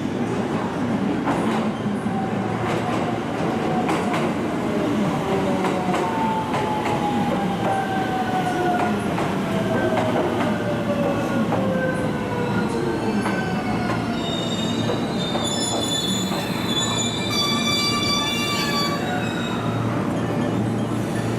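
An electric train running into the platform and slowing. Its motor whine slides down in pitch as it slows, then high-pitched squealing from the brakes and wheels rises near the end.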